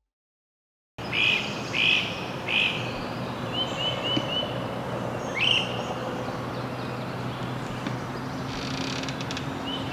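Birds singing and calling: a few loud, clear calls in quick succession about a second in, then a quick run of notes and scattered calls, over a steady low hum.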